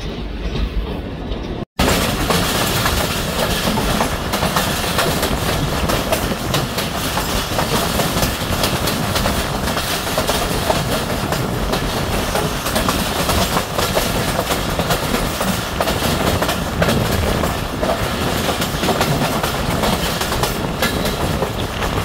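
Passenger train coaches running along the track, heard from an open door: wheels rumbling and clattering over the rails, with a dense rush of noise. The sound drops out for an instant just under two seconds in and comes back louder.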